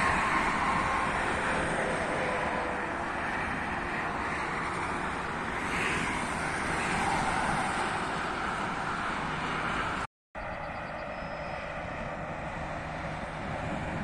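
Steady traffic noise from cars and lorries driving along an expressway, a mix of tyre and engine sound. It drops out briefly about ten seconds in, then carries on a little quieter.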